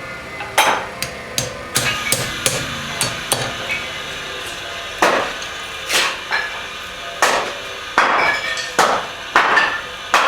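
Hand hammer striking hot steel on an anvil while forging a barbed-wire horseshoe: a run of irregular blows, each with a short ring, broken by a pause of over a second partway through.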